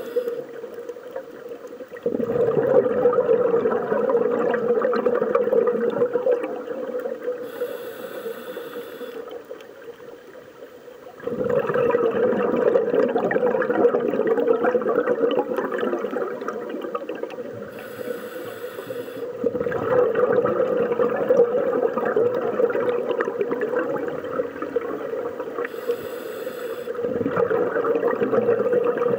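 Scuba diver breathing through a regulator underwater: long spells of bubbling exhaust broken three times by a short hissing inhale, in a cycle of about eight seconds.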